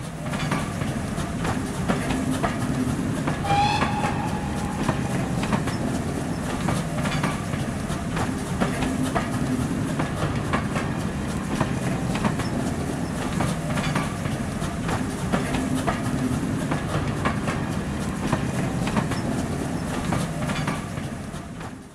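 Train carriages passing close by, wheels clicking regularly over rail joints over a steady rumble, with a brief whistle about three and a half seconds in.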